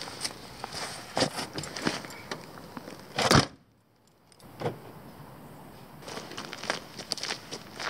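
Boots shuffling and scuffing on dry leaves and gravel beside a car, then a car door slammed shut a little over three seconds in, the loudest sound. After a moment of silence, footsteps crunching on a gravel track.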